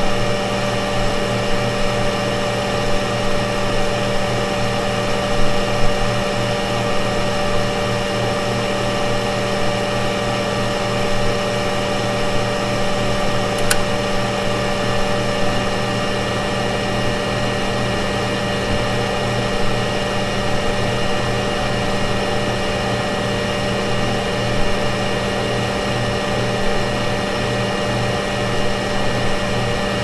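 Steady fan noise from a running SuperMicro 2U 825TQ server, an even rush of air with several steady tones in it. A little under halfway through, a single sharp click of the bottom power supply's relay switching on. The supply's Noctua NF-A4x20 fan then starts without adding any audible noise.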